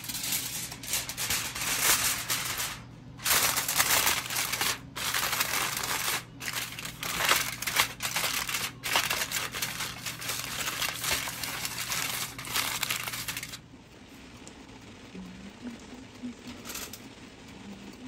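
Aluminium foil being crinkled and pressed over an oval flan mould, in loud bursts with short pauses. It stops about three-quarters of the way through, leaving only a faint hum.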